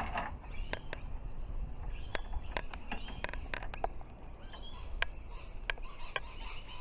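Scattered sharp clicks and light taps, about ten of them, as a canvas tool roll holding metal hand tools is unrolled and handled on a corrugated metal sheet. Faint high chirps sound in the background from about halfway through.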